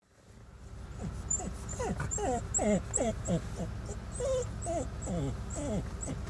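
Small dog whining in a run of short whimpers, each falling in pitch, about two a second, eager at the sight of horses.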